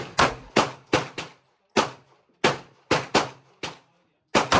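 Gunfire at a shooting range: about a dozen sharp gunshots in under five seconds, at irregular intervals with some in quick pairs, each followed by a brief echo.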